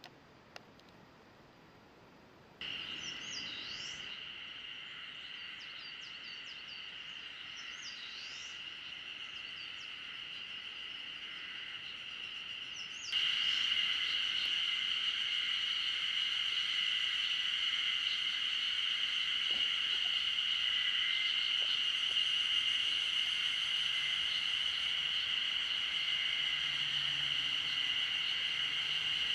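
Steady, high-pitched insect chorus, with a few short bird chirps in its first part. It starts after about two and a half seconds of near silence and steps louder about thirteen seconds in.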